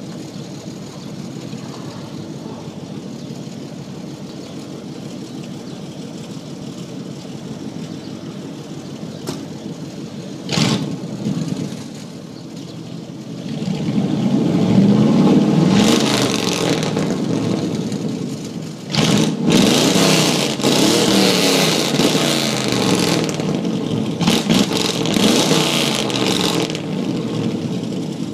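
Extremely loud straight-piped 7.5-litre Ford V8 of a 1990 F350, with no mufflers or catalytic converters, idling, then blipped twice about ten seconds in. From about halfway it is revved repeatedly, the pitch rising and falling, with a short drop near the two-thirds mark, and it settles back to idle near the end.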